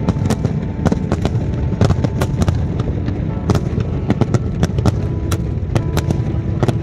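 Fireworks display: a rapid, irregular string of sharp bangs and crackles, several a second, over a continuous rumble.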